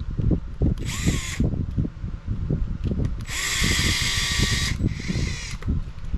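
Cordless powered screwdriver whirring in two runs, a short one about a second in and a longer one from about three seconds in, as it drives tiny screws into the buggy's parts. Low knocks and rumble sit underneath throughout.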